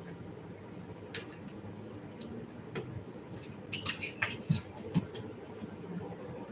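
Scattered short clicks and scratchy strokes of a craft knife cutting out card window pieces on a cutting mat, more frequent in the second half.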